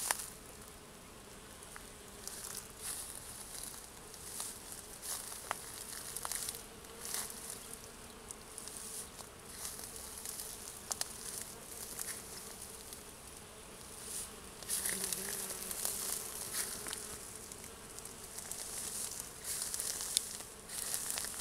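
Bees buzzing steadily around flowering raspberry canes as they pollinate them, one droning louder and closer about two-thirds of the way through. Brief high scratchy rustles come and go over the hum.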